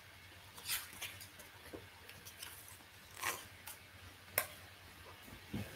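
Paper picture book being handled: a few faint rustles and a sharp click, with quiet between them.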